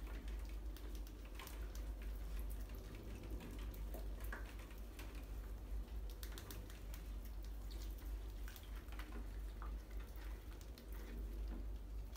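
Scattered faint clicks and ticks of a group of mice nibbling scattered grain and scrabbling over a tiled floor and glass jars, over a low steady hum.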